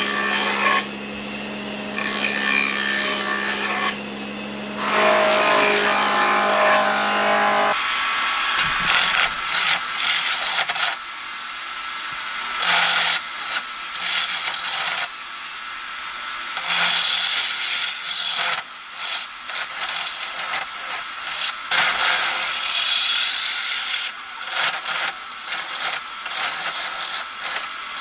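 A planer (jointer) runs with a steady motor hum as a square wooden axe-handle blank is fed over its cutter head. About eight seconds in this gives way to a wood lathe turning the blank, a turning gouge cutting it round in repeated on-off bursts of cutting noise as the tool meets the spinning wood.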